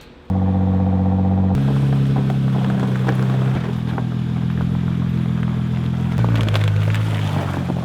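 Nissan GT-R R35's twin-turbo V6 running under way on a test drive, cutting in suddenly just after the start, its steady engine note shifting to a new pitch a few times.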